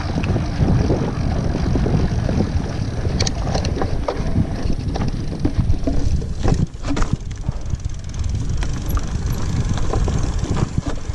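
Wind buffeting the microphone over the rolling rumble of mountain bike tyres on a sandy trail, with a few short clicks and rattles from the bike.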